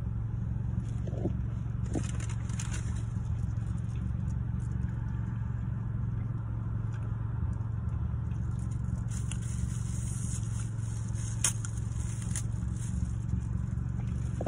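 Steady low hum of a car idling, heard from inside the cabin, with a faint high hiss over it. Small crackling clicks of someone chewing bread come through now and then.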